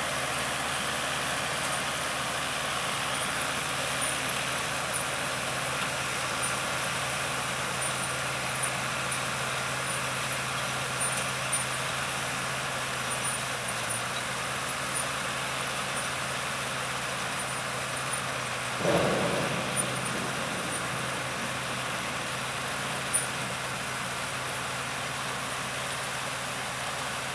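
Case IH tractor engine running steadily under load as it pulls a Top Air onion harvester, with the harvester's machinery clattering. Small clicks are scattered throughout, and there is one louder thump about two-thirds of the way through.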